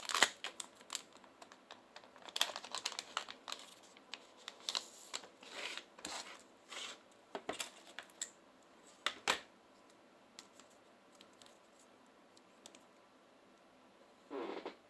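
Small clicks, taps and scrapes of hand tools and smartphone parts being handled, thinning out after about ten seconds, with a short, louder rasp near the end.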